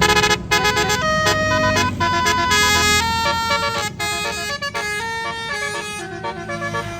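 Tour bus's Basuri telolet multi-tone air horn playing a quick melody, its notes stepping up and down in pitch, with the bus engine running underneath.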